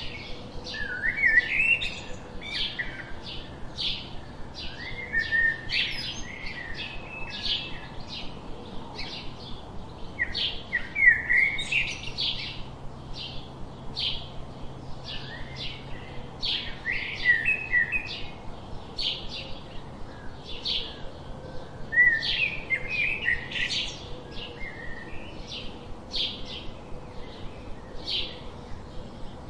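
Small songbirds chirping: a steady run of short high chirps, two or three a second, with warbling song phrases breaking in every few seconds.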